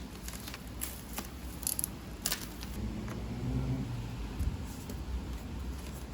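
Keyboard packaging being handled while it is unboxed: scattered light clicks and rustles, a few sharper taps in the first two and a half seconds.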